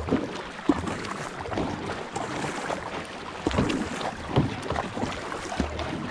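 Two kayak paddles dipping and splashing in quick, irregular strokes over a steady wash of water along the hull, as a tandem kayak is paddled at top speed.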